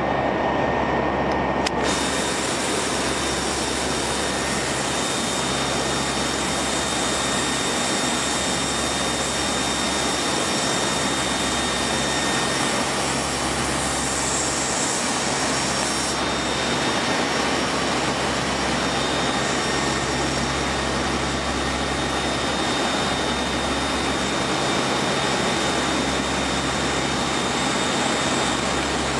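Aircraft engines running with a steady drone of noise, a few steady high whines riding over it. The character of the noise shifts abruptly about two seconds in, then holds steady.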